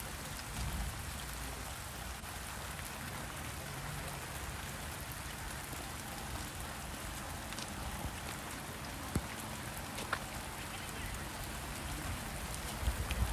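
Light monsoon rain falling, a steady hiss, with a couple of sharp ticks of drops about two-thirds of the way through.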